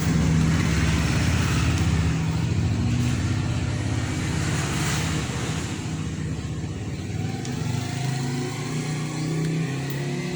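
A motor vehicle engine running with a low, slightly wavering hum that gradually fades.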